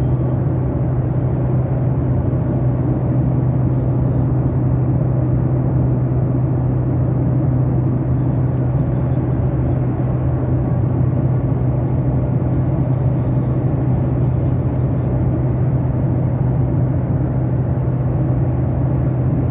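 Airliner cabin noise: the steady drone of jet engines and rushing air, with a strong low hum, heard from inside the passenger cabin.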